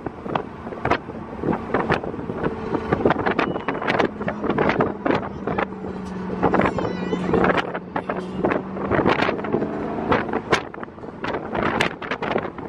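Inside a moving car: steady engine and road noise with a low hum, broken by many sharp, irregular taps.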